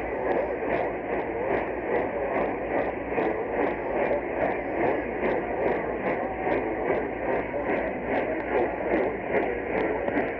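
Radio receiver static: a steady hiss of noise on a weak or dead broadcast channel, with a regular tick between two and three times a second.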